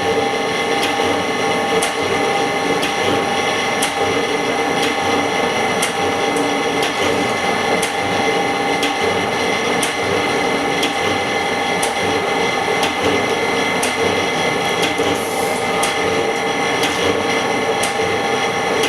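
Machine running steadily with a constant multi-tone hum and a sharp tick about once a second, typical of an LCD glass separator at work on a cracked phone screen.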